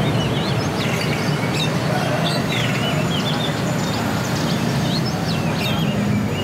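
Many caged songbirds chirping and twittering at once, short quick calls overlapping throughout, over a steady low rumble of traffic.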